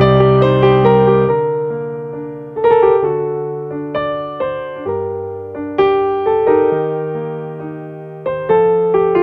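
Background piano music: slow chords and single notes, each struck and left to ring and fade before the next.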